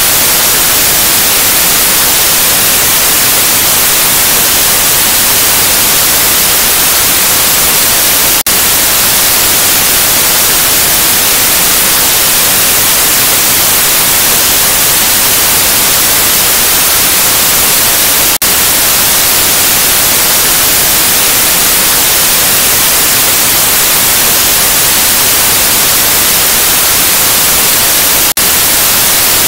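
Analog television static: a loud, steady hiss, strongest in the high end, with a very brief dip about every ten seconds.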